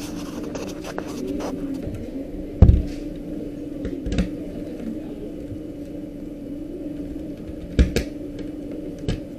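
A few sharp knocks and clicks of handling, the loudest about two and a half seconds in and a quick pair near the end, over a steady low hum.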